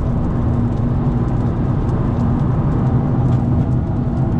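Vehicle engine droning steadily under road noise while driving along, with a few faint ticks over it.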